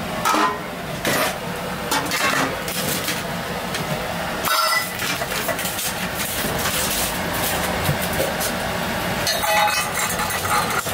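Stainless steel pots and lids clanking and clinking as they are lifted and set down: a handful of separate metallic knocks, the clearest about four and a half seconds in and again near the end, each with a brief ring. Steady street traffic hums underneath.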